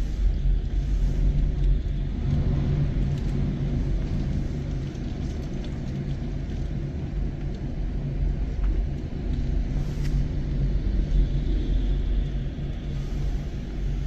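Storm wind and heavy surf from huge waves breaking over a seawall and flooding the promenade, heard as a steady low rumble.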